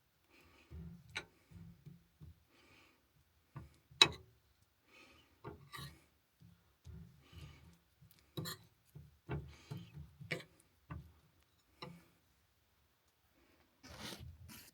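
Hands working egg-coated pieces of chicken of the woods fungus in a bowl: irregular small taps and clicks with soft rubbing and scuffing, one sharper tap about four seconds in.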